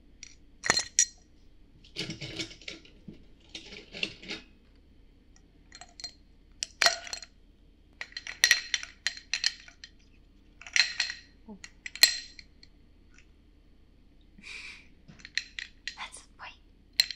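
Ice cubes put one by one with tongs into a tall drinking glass, each landing with sharp clinks of ice on glass, in a run of separate clusters. Near the end the full glass is handled and the ice clinks inside it.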